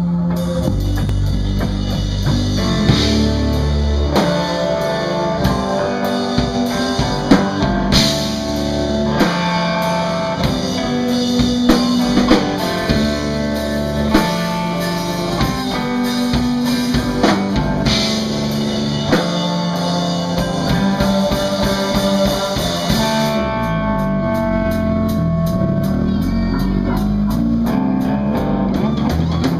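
Live rock band playing loudly: Precision-style electric bass, electric guitar and drum kit.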